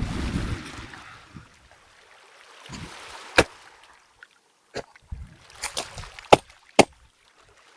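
Low wind rumble on the microphone fades out in the first second. Then a handful of sharp, separate clicks and knocks, as of objects being handled.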